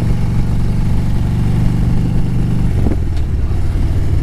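Harley-Davidson Road Glide V-twin engine running under way, pulling steadily; its note breaks about three seconds in and then carries on lower.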